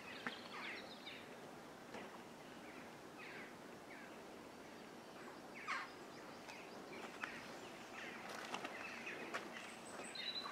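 Faint outdoor ambience with scattered bird chirps, short falling calls, over a steady hiss, and a few light clicks.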